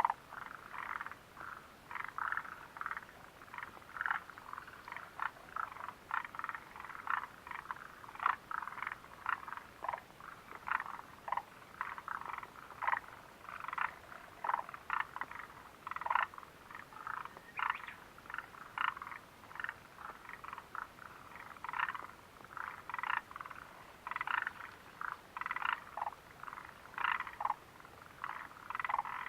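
A chorus of frogs calling, with many short croaks overlapping at several a second.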